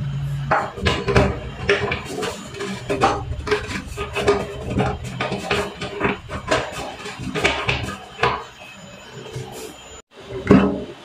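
Irregular clicks, knocks and clatter of a plastic sink faucet being handled and worked loose from a stainless steel sink, for removal. The sound breaks off abruptly near the end.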